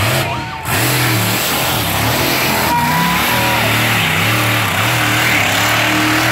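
A monster truck's engine revving hard, its pitch rising and falling again and again as the driver works the throttle through a freestyle run.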